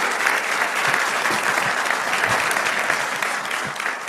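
Theatre audience giving a standing ovation: steady, loud clapping, easing slightly near the end.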